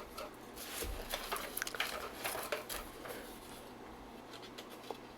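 Faint rustling and light clicks of paper inserts and cardboard packaging being handled, as the contents are taken out of a headphone box; busier in the first few seconds, then quieter.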